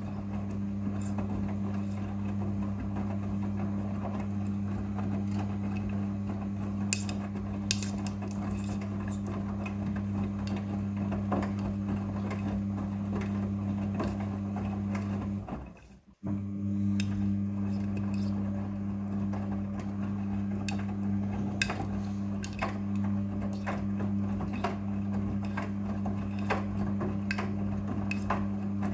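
Front-loading washing machine running: a steady motor hum with scattered clicks and knocks from the load turning in the drum. The sound briefly cuts out about halfway through, then resumes.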